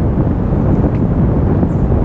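Wind buffeting the microphone of a bicycle-mounted camera while riding, a steady low rumble.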